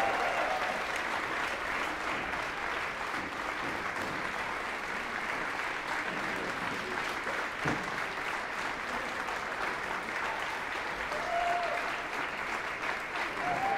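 Audience applauding steadily, with a couple of short calls from the crowd near the end.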